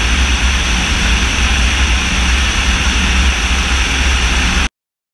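Steady rush of airflow and engine noise from an Orion drone in flight, picked up by a camera mounted under its wing, with a heavy low rumble. It cuts off abruptly near the end.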